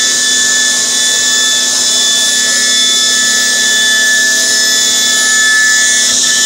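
Bacci Artist six-axis CNC router's high-speed spindle running while machining wooden parts: a steady high-pitched whine over a loud hiss.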